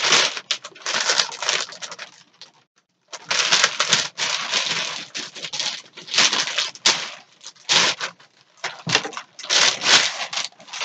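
Packaging being pulled and torn off a LARP sword: irregular bursts of crinkling and tearing, with a brief pause about two to three seconds in.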